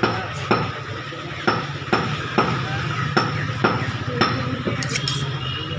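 Blade knocking on a wooden butcher's chopping block as mutton is cut: about nine sharp, uneven knocks, roughly two a second.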